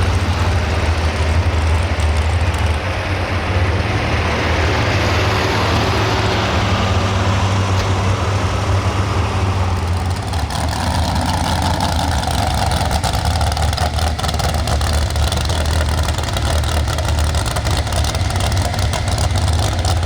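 Pro stock 4x4 pulling truck's engine running loud and steady with a deep drone. About halfway through, the higher hiss drops away and a mid-pitched drone remains.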